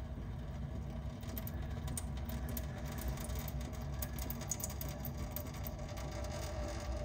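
Thin streams of water from drain tubes trickling and dripping into a stainless steel sink, heard as scattered light ticks over a steady low hum.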